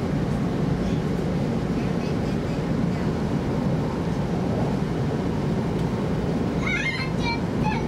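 Steady low running rumble of an E2-series 0 Shinkansen train, heard from inside the passenger cabin.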